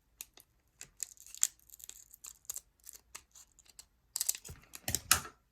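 Foil trading-card booster packs crinkling and cards being handled: a run of small crackles and clicks, denser near the end.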